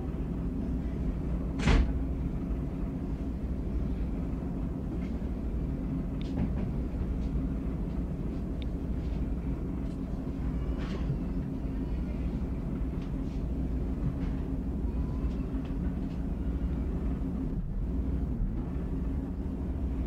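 Diesel railcar engine idling steadily at a standstill, a low even hum. A short sharp hiss cuts in about two seconds in, and faint bird chirps come and go over the top.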